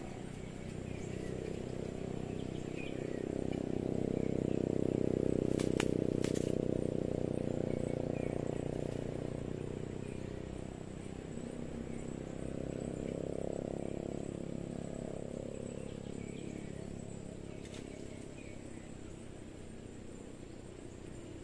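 Outdoor ambience under trees: a low rumble that swells and fades twice, with faint bird chirps scattered throughout and two sharp clicks about six seconds in.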